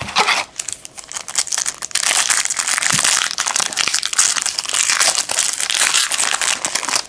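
Foil trading-card pack wrapper crinkling loudly as it is handled and torn open by hand, dense and continuous from about two seconds in.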